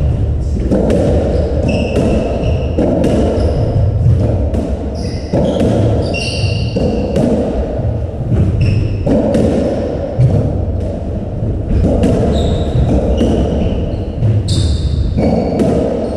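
A racketball rally on a squash court: the rubber ball smacking off strings and walls in irregular knocks, with short high squeaks from shoes on the wooden floor, over a steady low background noise.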